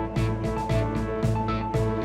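Background music: instrumental track with held notes over a steady beat.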